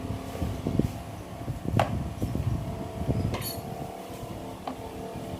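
Kitchen handling sounds as glutinous rice flour is added to a mixing bowl: soft knocks and bumps, a sharp clink about two seconds in, a brief rustle about a second and a half later, and a lighter clink near the end, over a faint steady hum.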